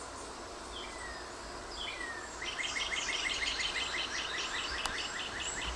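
A bird calling over steady outdoor background noise: two short falling chirps, then a fast run of repeated high notes, about six or seven a second, lasting about three seconds.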